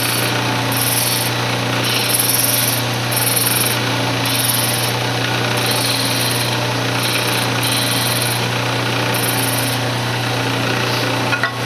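Wood lathe motor running with a steady hum while a turning tool cuts the spinning cocobolo ring blank in repeated short passes, each heard as a brief hissing scrape, about eight in all. A couple of clicks near the end.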